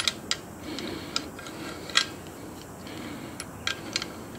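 Open-end spanner working a brass gas fitting on a camp stove's steel burner: scattered sharp metallic ticks and clicks as the nut is spun onto its thread, the loudest about two seconds in.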